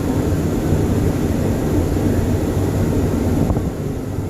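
Hurricane simulator booth's fans blowing a Category 1 hurricane-strength 80 mph wind: a loud, steady rush of air, mostly low-pitched, heard from outside the booth's glass.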